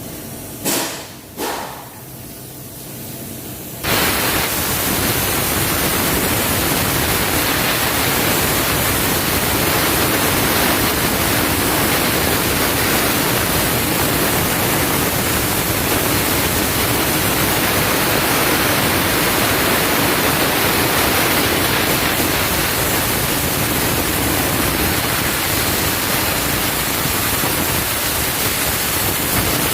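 Loud, steady rushing hiss that starts abruptly about four seconds in, after two short knocks.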